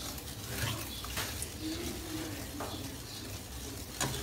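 Spatula stirring semolina as it roasts for suji ka halwa in an aluminium pan, with a few short scrapes against the metal.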